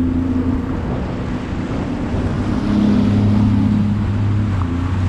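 Sea-Doo Fish Pro personal watercraft running at speed: a steady 155 hp engine hum, with water rushing past the hull and wind buffeting the microphone. The engine note eases slightly, then picks up again about halfway through.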